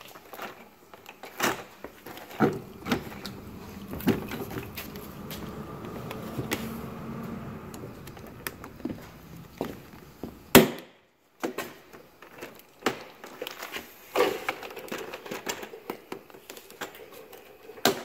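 Plastic retaining clips of a 2002 Jeep Liberty's driver door trim panel popping loose as the panel is pulled away from the door. A run of sharp snaps, cracks and knocks, with rubbing and scraping in between; the loudest snap comes a little past halfway.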